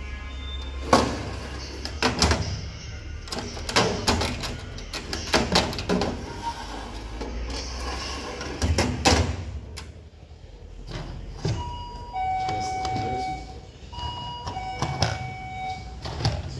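Stainless-steel cone drawer of a cup dispenser cabinet being slid open and shut, metal sliding and knocking in a string of clatters. Near the end come two held tones, each about a second and a half long.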